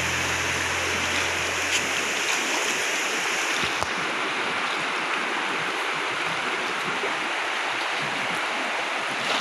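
Steady rush of a fast-flowing shallow river, with low background music fading out about two seconds in.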